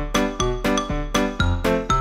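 Background music: a light, bouncy tune with short plucked-sounding notes at an even pace of about four a second.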